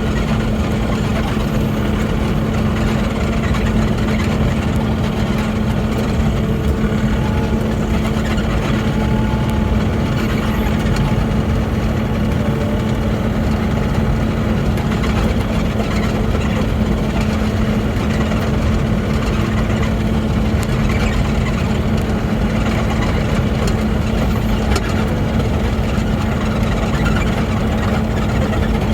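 Mini excavator's diesel engine running steadily at constant speed, with a strong, even hum.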